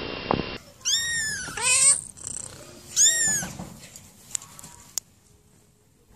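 A young kitten meowing: three loud, high-pitched meows, each rising and then falling, in the first few seconds, followed by two faint clicks. The first moment holds the tail end of a kitten's purr.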